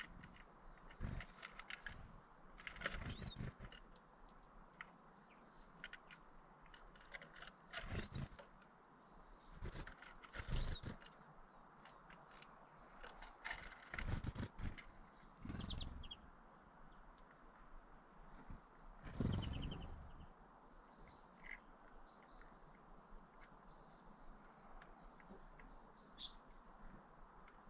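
Small birds chirping in short, scattered calls, with about eight loud, close rustles or thumps.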